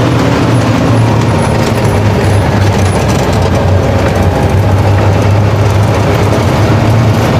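Truck engine running steadily with a low hum, mixed with tyre and road noise as the truck drives along.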